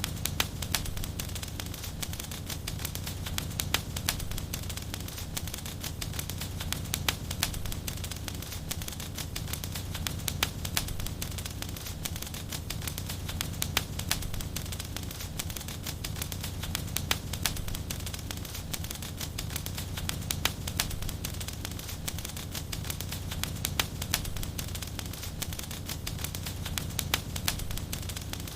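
Wood fire in a fireplace crackling, with a steady low rumble of burning under frequent sharp pops and snaps, a few of them loud.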